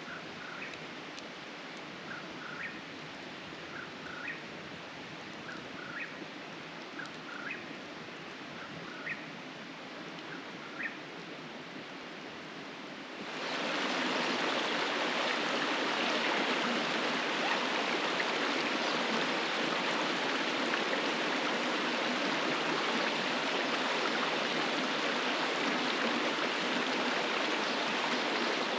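Creek water flowing in a steady rush, faint at first with short high chirps repeating about every second and a half, then about halfway through jumping to a much louder, closer rush that holds steady.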